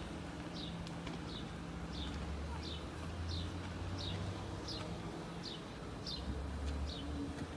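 A bird repeating one short, high, falling chirp about every second or less, over a steady low hum.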